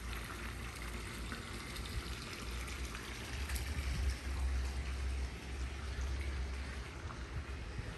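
Water steadily trickling and splashing from a pool's spill feature into the pool, over a low rumble.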